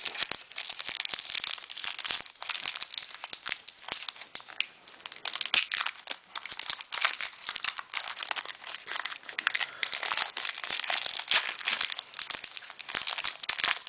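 Foil wrapper of a Pokémon booster pack crinkling continuously as it is handled and opened.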